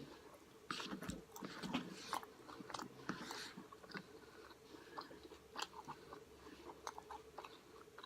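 A person chewing a mouthful of a Chipotle burrito bowl close to the microphone: quick wet mouth clicks and smacks, thickest in the first few seconds and sparser after, over a faint steady hum.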